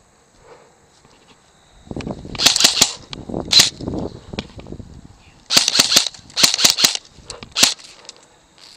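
Airsoft guns firing in short bursts of rapid clicking shots, about five bursts starting about two seconds in.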